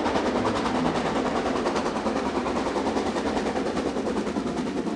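A fast, steady rattle of rapid even knocks, with a few faint low held notes underneath.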